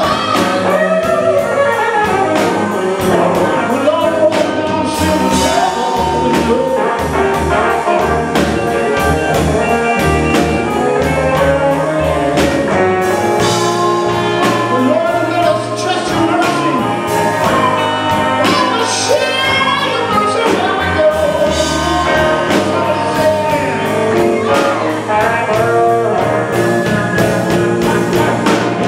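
Live band music: electric guitars over bass and drums, with a man singing.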